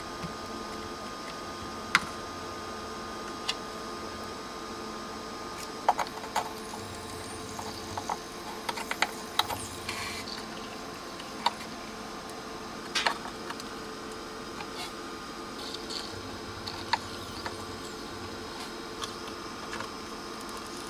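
Scattered small clicks and taps of a soldering iron and long-nose pliers handling wires on a circuit board while the transformer leads are soldered in, over a steady bench hum.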